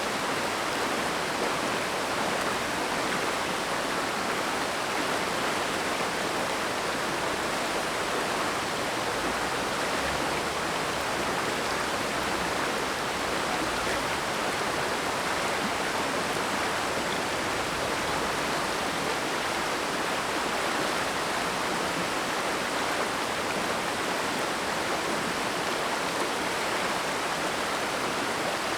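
The Oirase mountain stream rushing steadily, an even, unbroken sound of flowing water.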